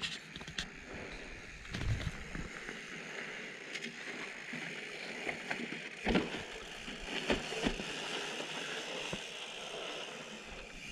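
Mountain bike rolling slowly over rock and loose dirt: a steady hiss of tyres and grit, broken by a few short knocks of the bike on rock.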